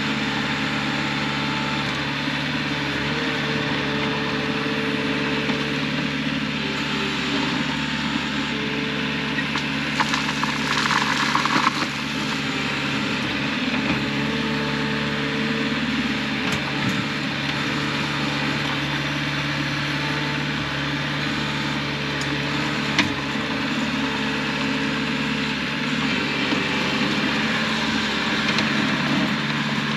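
Engine running steadily at an even idle, with a brief rush of louder noise about ten seconds in and a single sharp click later on.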